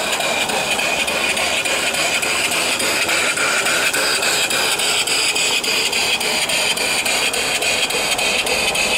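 Homemade mill steam engine (3-inch bore, 4-inch stroke) running fast on live steam: a rapid, even exhaust beat over a steady hiss of steam.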